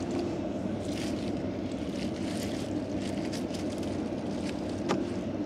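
Small boat's engine running at a steady pitch, with a few faint ticks over it.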